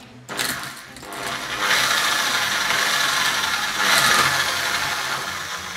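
Power drill with a twist bit boring into a 3D-printed ABS plastic part, clearing support material out of its holes. The drilling starts just after the beginning, is loudest in the middle, and tails off near the end.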